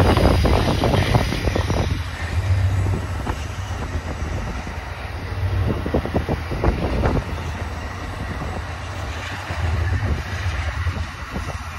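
Amtrak Superliner bilevel passenger cars rolling past: steel wheels rumbling and clattering on the rails, loudest in the first two seconds, then easing to a lower, uneven rumble.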